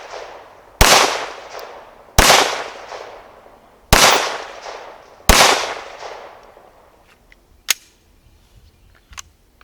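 Four shots from a Glock 17 Gen 4 9mm pistol, about a second and a half apart, each trailing off in a long echo. Two short sharp clicks follow near the end.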